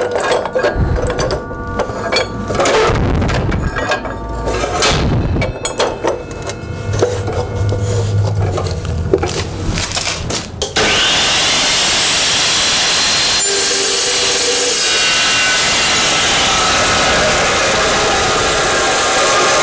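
Clinks and knocks of steel stock being handled and set in the saw, then about halfway through an Evolution Rage 2 saw starts abruptly with a quick rising whine and runs steadily, cutting through steel.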